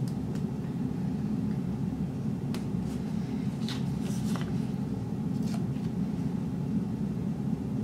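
A steady low background hum, with a few faint light rustles and taps of paper stickers being peeled from their sheet and pressed onto a planner page.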